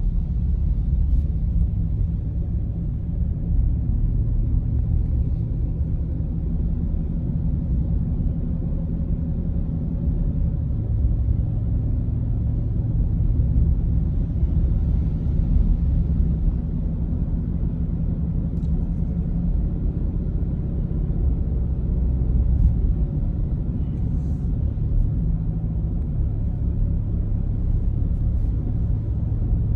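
Steady low engine and road rumble of a vehicle being driven at an even pace.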